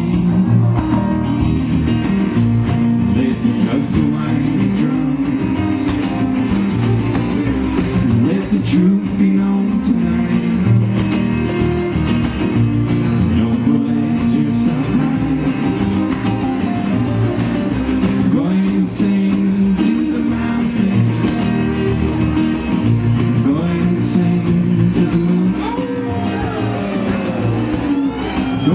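Acoustic string band playing live, with strummed acoustic guitar, fiddle and upright double bass.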